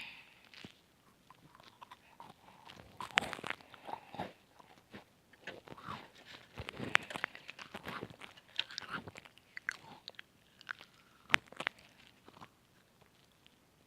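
Close-miked eating of chocolate chip cookies: irregular crisp crunching bites and chewing, with a few sharper cracks standing out.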